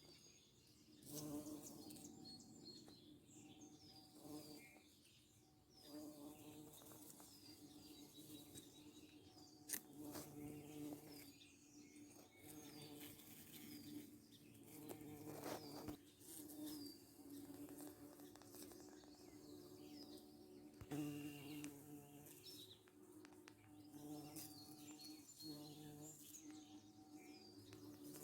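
An insect buzzing on and off as it flies close by, over birds chirping in many short, falling notes.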